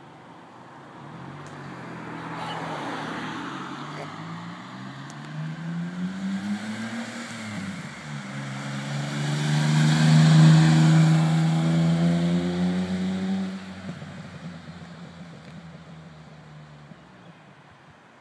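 Small Suzuki hatchback's engine accelerating, its revs climbing and then dropping at a gear change about eight seconds in. It passes close by, loudest around ten seconds, and fades as the car drives away.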